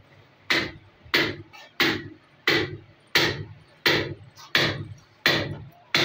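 A steady series of about nine sharp knocks or blows, roughly three every two seconds, each dying away quickly.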